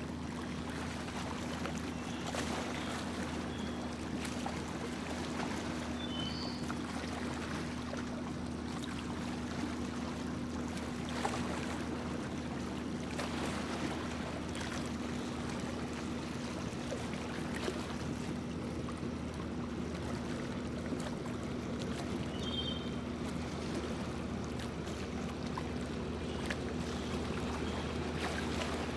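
Small boat under way on a calm lake: its motor runs with a steady hum under the even rush of water along the hull.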